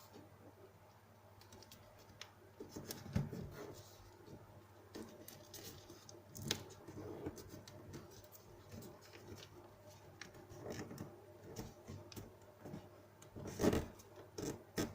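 Paper being folded and creased by hand: soft, irregular rustling and scraping with scattered light clicks, louder about three seconds in and again near the end.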